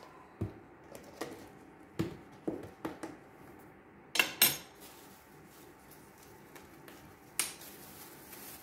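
Light taps and clinks of kitchen utensils and small containers being handled on a countertop beside a digital scale. There are several scattered knocks over about eight seconds, the loudest a quick double knock about four seconds in. A faint steady hiss comes in near the end.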